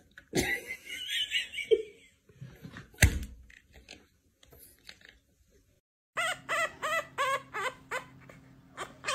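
A couple of thumps on a tabletop, then from about six seconds in a puppy squealing in short repeated calls, about three a second.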